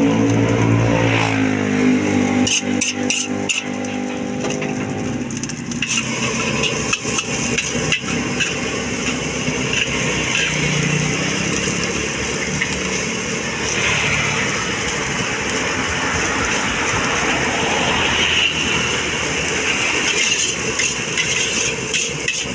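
Metal spatula scraping and knocking rapidly against a steel wok as fried rice with leafy greens is stir-fried, with frying sizzle underneath. Background music plays over the first five seconds or so, then stops.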